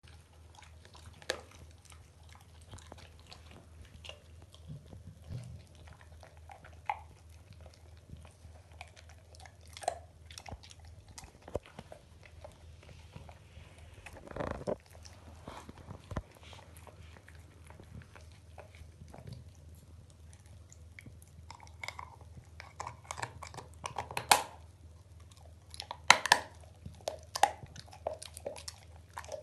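Staffordshire bull terrier gnawing and crunching on a bone, with irregular sharp cracks and clicks as pieces break off. The crunching grows busier and louder in the last several seconds.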